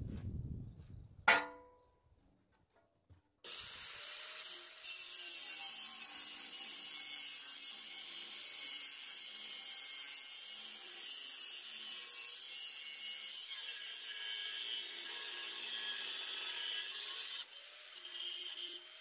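A single ringing metal clang about a second in, then a short pause. After that a power tool runs steadily against steel, a hissing grind with high whining tones.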